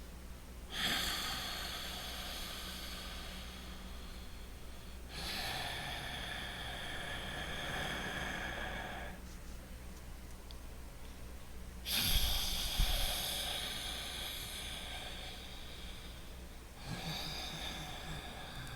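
Slow, loud breathing through the nose: four long breaths of about four seconds each, with a pause of a couple of seconds after the second, where the breath is held.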